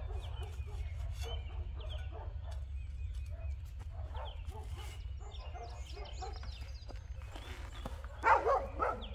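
Dogs barking: a quick run of loud barks near the end, after softer dog calls in the middle.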